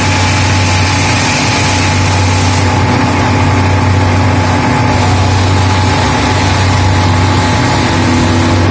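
MKM UNICOMPACT 50/12 CNC woodworking machining centre running: a loud, steady machine drone with a strong low hum. The high hiss drops away about three seconds in.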